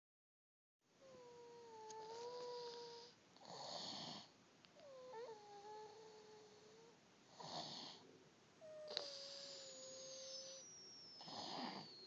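A sleeping young child snoring softly: a thin whistling tone held for a second or two, then a short noisy breath, repeating about every four seconds.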